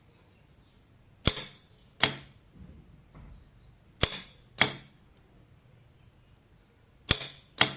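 Electromagnetic solenoid bolt lock switched by a relay, snapping open and shut three times: each time a sharp clack as it pulls in, then a second clack about half a second later as it releases.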